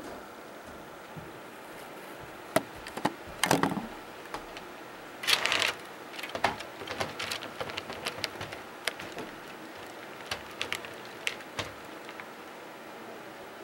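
HO scale model covered hopper cars rolling along the track, their wheels clicking and rattling irregularly over a steady rolling hiss, with a louder burst of clatter about five and a half seconds in.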